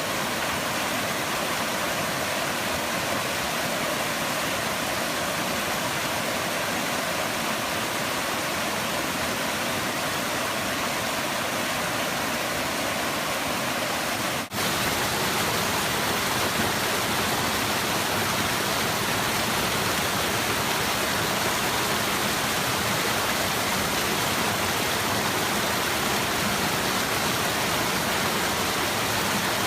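Small waterfalls and a stream, water falling and rushing steadily. About halfway through the sound drops out for a split second and resumes a little different, as from another stretch of falling water.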